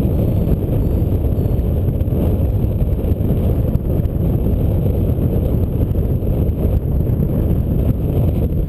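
Wind rushing over the camera microphone in paraglider flight: steady, loud, low wind noise with no breaks.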